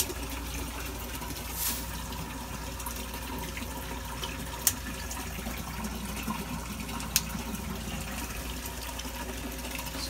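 Water running down the screens of a waterfall algae scrubber and falling into the refugium below, a steady splashing over a low hum. Two short sharp clicks, a little before halfway and again a few seconds later.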